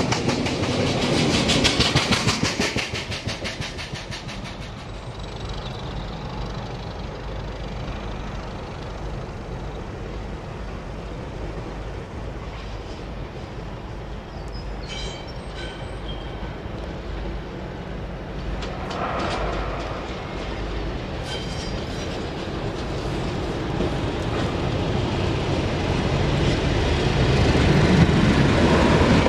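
Loaded flat wagons of a freight train passing, their wheels clicking rhythmically over the rail joints and fading away within a few seconds. Later a BR Class 31 diesel locomotive approaches, its engine growing steadily louder near the end.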